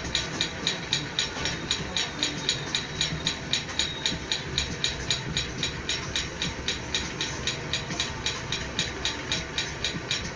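A steady, even ticking, about four ticks a second, over a constant low hum.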